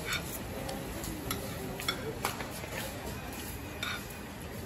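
Metal spoon and fork clinking and scraping against a ceramic plate while eating, a handful of short sharp clinks over a steady background din.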